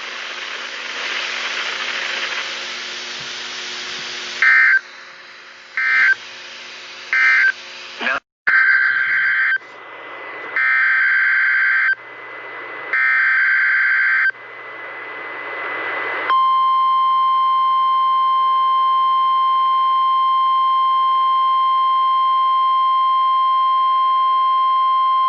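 NOAA Weather Radio broadcast: static hiss, then a series of screeching SAME digital header data bursts, three of them longer and about a second apart. About 16 s in comes the steady 1050 Hz Warning Alarm Tone, held for about nine seconds, sent as the station's weekly test of the warning alarm.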